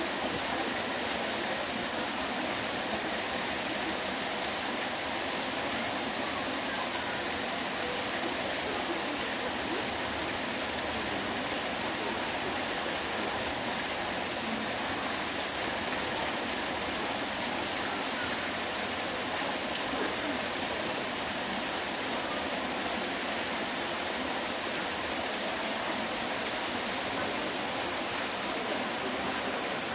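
Steady rushing noise of running water that never breaks, with no distinct events.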